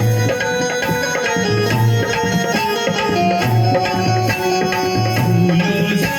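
Instrumental music: a melody over drums that beat in a steady repeating rhythm, with no singing.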